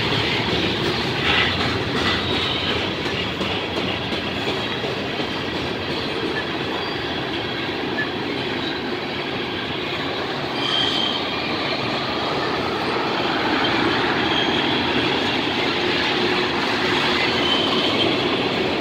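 Freight train cars, covered hoppers then tank cars, rolling past close by: a steady noise of steel wheels on rail, with short high wheel squeals now and then in the second half.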